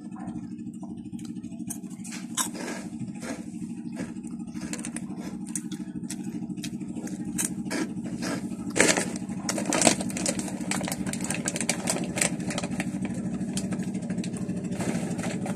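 Chewing and crunching of Oishi spicy prawn crackers: a run of short, sharp crunches, loudest around nine and ten seconds in. Under it runs a steady low engine-like drone.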